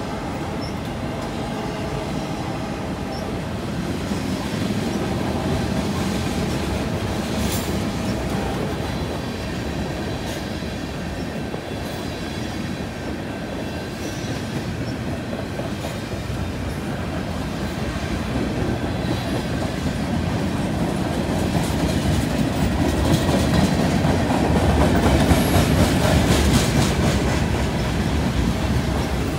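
Freight cars of a passing train rolling by: a steady rumble and clatter of steel wheels on the rails, swelling louder near the end.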